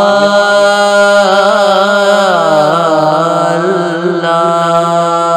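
A solo voice sings an Urdu devotional naat, drawing out a single long note on 'Ya…' over a steady low drone. The note holds at first, then bends down and wavers in a melisma about two to three seconds in.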